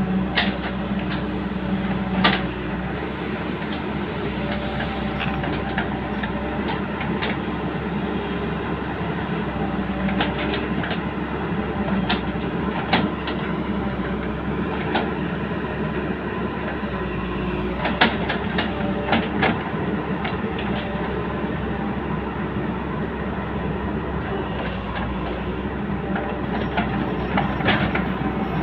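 Long-reach excavator's diesel engine running steadily, with sharp metallic knocks now and then, in a few clusters.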